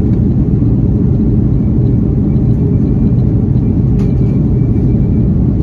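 Steady low rumble of an Airbus A330-300 airliner heard inside the cabin: engine and airflow noise, with a faint click about four seconds in.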